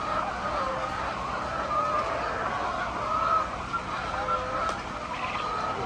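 A flock of chickens calling, many wavering voices overlapping in a steady chorus.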